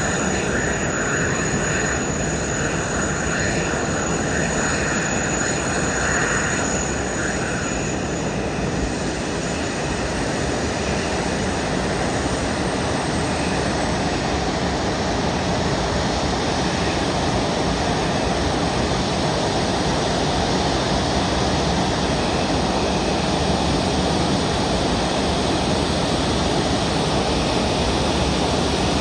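Airbus A380's four Rolls-Royce Trent 900 turbofans running at taxi power: a steady jet rush and rumble. A thin high whine over the first several seconds fades away, and the sound grows slightly louder near the end as the aircraft comes closer.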